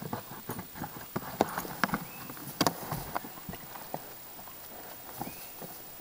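Goats butting and nosing a plastic tub lying on its side: irregular hollow knocks and clacks, thickest in the first few seconds and then thinning out.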